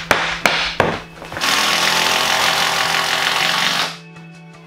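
A hammer knocking on pine floorboards, four quick blows, then a power tool runs steadily for about two and a half seconds and stops suddenly.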